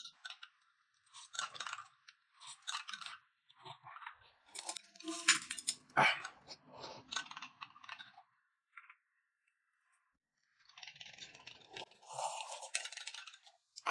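Faint eating sounds: chewing of steamed buns and a few light clinks of a spoon against a glass mug. Near the end comes a longer sipping sound as soup is drunk from the mug.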